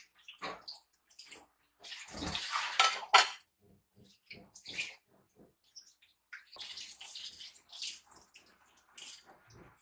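Dishes and cutlery clattering with splashing water, typical of washing up at a sink. A rush of water about two seconds in ends in two sharp clinks around three seconds, with more scattered clinks and knocks after it.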